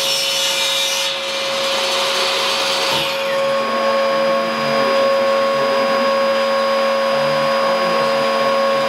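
Table saw and its vacuum dust extractor running with a steady whine, while a rip cut through 4 mm hardboard is finished in the first few seconds. The sound then settles to the machines running with no load.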